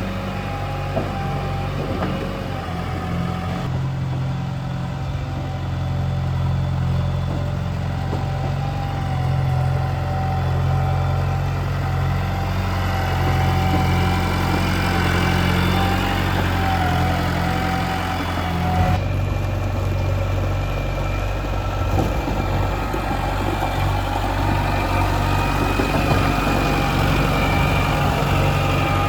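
JCB 3DX backhoe loader's diesel engine running steadily, with a higher wavering whine above it. The sound changes abruptly about two-thirds of the way through.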